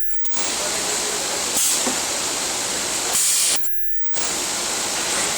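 Ultrasonic welding machine sealing sponge: a steady hiss with two short, sharper high-pitched hisses, each about half a second long, as weld cycles fire about a second and a half apart. The sound drops out briefly at the start and again in the middle.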